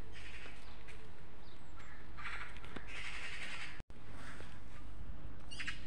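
Bird calls in several short bursts over a steady low background rumble. The sound cuts out for an instant about two-thirds of the way through.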